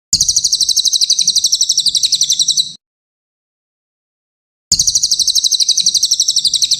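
Brown cililin songbird singing two long, rapid, high-pitched trills of evenly repeated notes, each about two and a half seconds long, with a gap of about two seconds between them.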